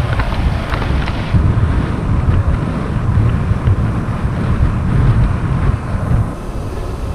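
Wind buffeting the microphone of a camera on a moving bicycle, a steady low rumble and rush of air that eases a little about six seconds in.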